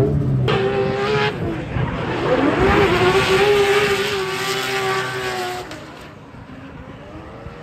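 A drift car's engine revving hard at high revs as it slides past, its tires squealing. The pitch dips and climbs again a couple of seconds in, then the sound fades away about six seconds in.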